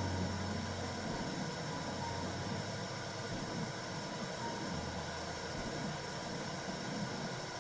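Womb sound for soothing a baby: a steady, low, rushing noise with no breaks.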